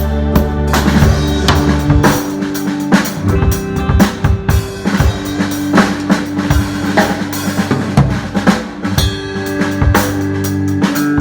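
A drum kit played in a steady groove with a worship band or backing track, frequent sharp strikes over held bass and keyboard notes.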